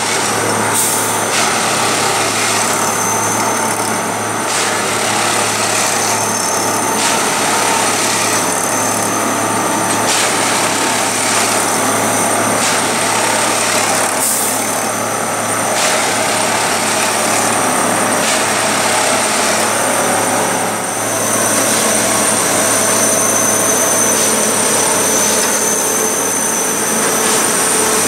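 Plasser track tamping machine at work, its engine and tamping units running loudly and steadily with a low hum and a high whine. A working cycle repeats about every one and a half seconds as the tines tamp the ballast sleeper by sleeper.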